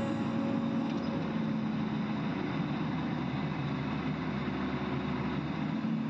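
Heavy diesel site machinery running steadily: an even, low engine rumble with a hiss of noise above it.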